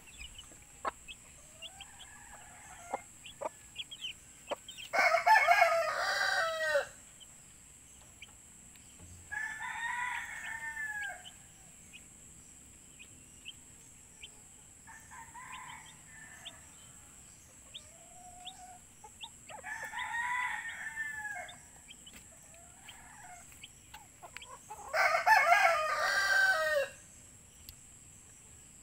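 Roosters crowing: five long crows about five seconds apart, the loudest about five seconds in and near the end, one faint crow in the middle. Chicks peep faintly between the crows.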